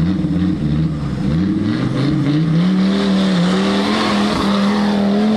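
Off-road vehicle's engine revving: the pitch dips at first, then climbs over the next couple of seconds and holds high under load.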